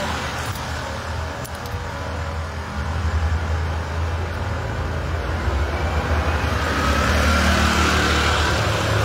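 Road traffic: a steady, low engine rumble that grows louder over the middle of the stretch, with a faint rising whine in the last couple of seconds as a vehicle goes by.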